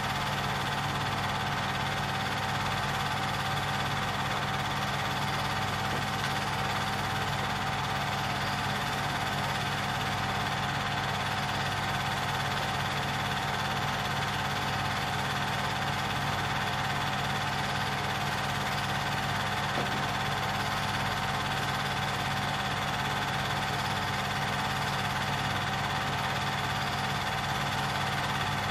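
Film projector running steadily: an even mechanical hum with several steady tones and no change in pitch or level.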